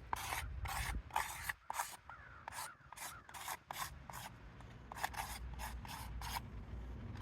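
Chalk scraping across the gritty face of a roofing shingle in a series of short, scratchy strokes as the shingles are marked, with a lull about two seconds in.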